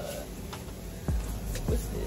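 Background hip-hop music, with deep bass notes coming in about a second in.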